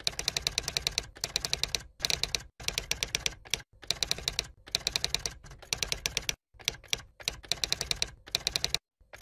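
Typing sound effect: rapid key clicks, about ten a second, in short runs with brief pauses between them, matching on-screen text being typed out letter by letter.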